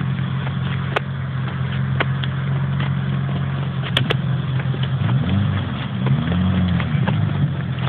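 Vehicle engine running steadily, its pitch dipping and rising again between about five and seven seconds in, with scattered sharp clicks.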